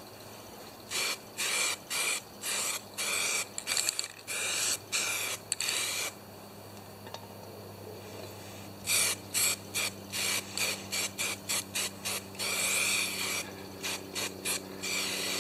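Aerosol spray can of etching primer hissing in many short squirts as the inside of an aluminium chainsaw part is sprayed: one run of quick bursts, a pause of about three seconds, then another run.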